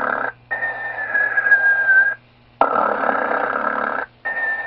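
Animated Santa Claus figure's snoring sound: a rasping snore in, then a whistling breath out that sinks slightly in pitch, repeating about every two and a half seconds. A click marks the start of the second snore, and a steady low hum runs underneath.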